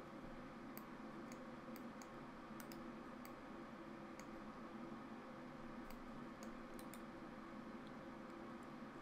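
Computer mouse buttons clicking about a dozen times at irregular intervals, some in quick pairs, over a faint steady hum.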